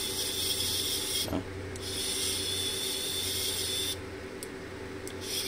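Motor of a Zimmer orthopaedic surgical drill, freed after being stuck, running in short high-pitched whirring spins: it stops briefly about a second in, runs again for about two seconds, stops for about a second, then starts again near the end. The motor turning freely shows the repair has worked.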